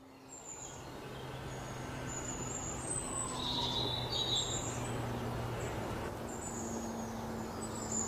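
Urban outdoor ambience fading in: birds chirping in short high calls over a steady hum of distant traffic.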